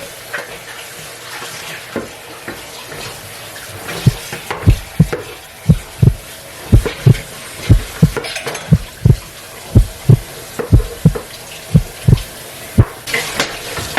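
Water running from a kitchen tap in a steady hiss. From about four seconds in to near the end, a run of low thumps comes at about three a second.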